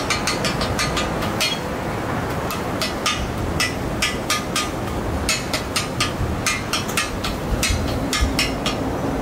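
Metal spatula edge striking and scraping on a steel teppan griddle as it cuts through a spread of cabbage okonomiyaki batter, making irregular sharp clicks about three a second over a steady low rumble.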